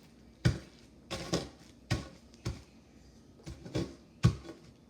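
Oreo cookies in a Ziploc bag being crushed with a food hammer: about eight uneven knocks of the hammer, with the cookies crunching under the blows, the hardest one near the end.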